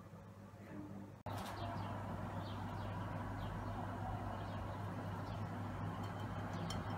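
A small wire whisk stirring through dry flour in a glass bowl, a soft scratchy sound, with birds chirping faintly over a steady low hum. The sound drops out and cuts about a second in.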